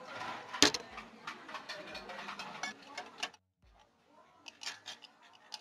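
Milk pouring from a carton into a glass with a spoon standing in it, with a sharp clink of the spoon against the glass near the start. After a brief silence, light clicking of a spoon stirring in a glass.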